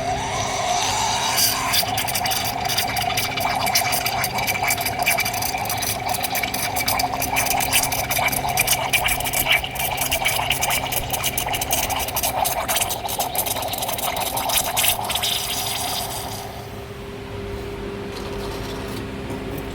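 Sage espresso machine's steam wand running: a loud hiss with rapid crackling and sputtering, as the steam function is tested after a pump repair. It cuts off suddenly about three-quarters of the way through, leaving the machine's steady low hum.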